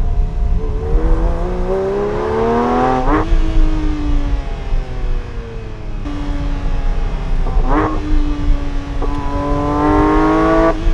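Porsche 911 GT3 S/C's naturally aspirated 4.0-litre flat-six revving up, its pitch climbing until a sudden break about three seconds in, then sinking for a couple of seconds. A brief blip follows near the middle, then another climb in revs, cut off sharply at the end.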